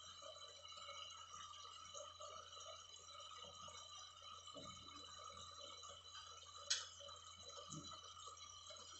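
Near silence: faint steady hiss and low hum, with one short sharp click about two-thirds of the way through.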